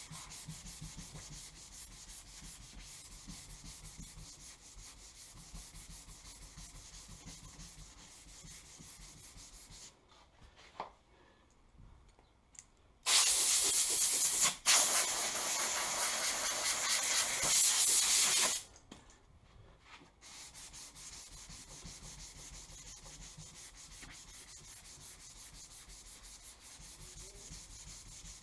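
Sandpaper hand-sanding body filler on a pickup truck's door, a steady rasping rub of back-and-forth strokes. About halfway through, the sanding stops and a loud spray hiss runs for about five seconds, broken once briefly, before the sanding starts again.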